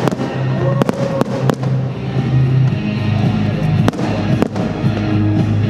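Fireworks bursting in irregular single bangs, several in quick succession in the first second and a half and a few more later, over loud background music.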